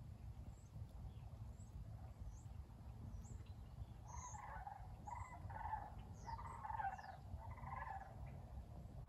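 Wild birds calling: thin, high, falling chirps all the way through, and a run of about five harsher, lower calls from the middle to near the end, over a low, steady rumble.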